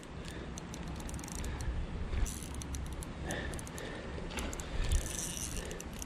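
Fishing reel ratcheting with many short, irregular clicks as a hooked smallmouth bass is fought and reeled in.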